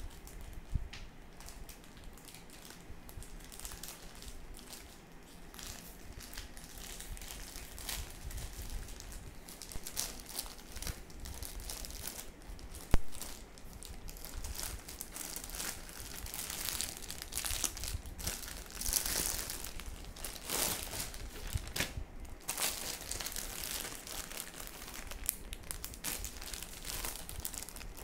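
Plastic courier mailer crinkling and tearing as it is opened by hand, then the clear plastic wrapping of the packed saree crinkling. The crackling comes in irregular bursts, busier in the second half, with one sharp click about halfway through.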